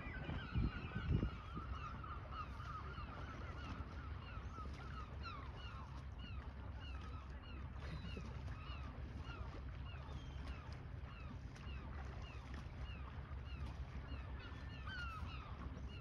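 A flock of birds calling continuously, many short overlapping calls, over a low steady rumble.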